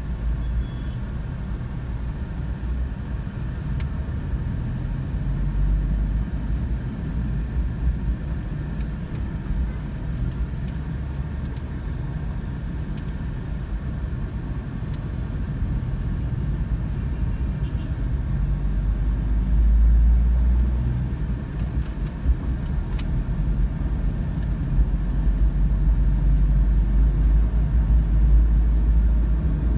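Low, steady rumble of a car's engine and tyres heard from inside the cabin while it drives along, swelling about two-thirds of the way through and again near the end.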